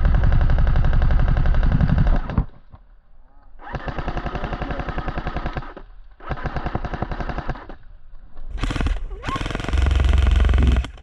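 Airsoft rifle firing on full automatic in four long bursts of rapid clicking shots, each burst cutting off sharply.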